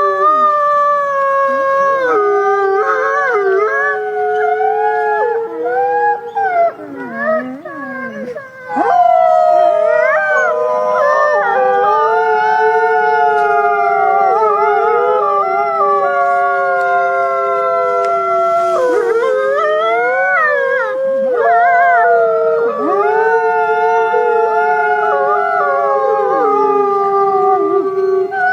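Wolves howling in chorus: several long, overlapping howls held at different pitches, each bending and breaking on its own.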